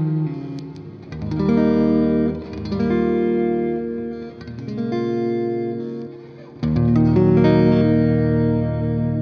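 Electric guitar played through Amplitube's modelled Fender Twin Reverb amp, about four chords struck in turn and left to ring out, washed with the amp's spring reverb.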